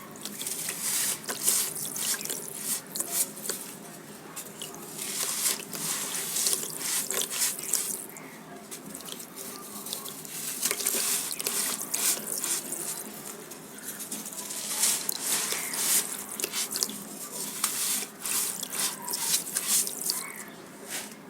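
Lumps of dry sand crumbling and dissolving in water, with dense crackling and fizzing. It comes in stretches of a few seconds separated by short lulls.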